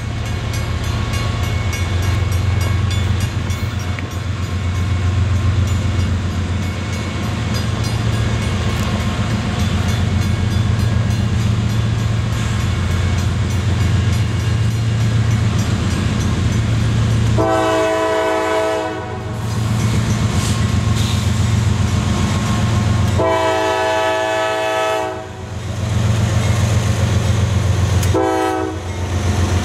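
CSX GE diesel freight locomotives approaching and passing with a steady low engine rumble and wheels on the rails. Partway through, the multi-chime air horn sounds two long blasts and then a short one, the pattern that opens a grade-crossing signal.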